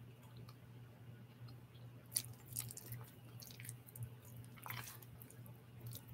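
Faint chewing, wet mouth sounds and small clicks from a person eating, over a low steady hum.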